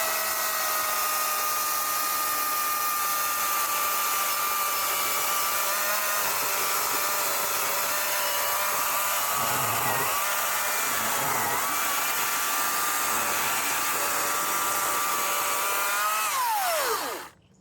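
Greenworks 80-volt battery-electric chainsaw running flat out through a thick log: a steady high motor-and-chain whine that dips twice in pitch under load in the middle, then winds down with falling pitch near the end as the trigger is released.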